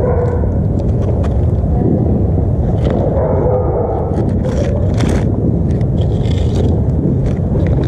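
Distant New Year's Eve firecrackers and fireworks going off on every side: a continuous low rumble with scattered sharp pops.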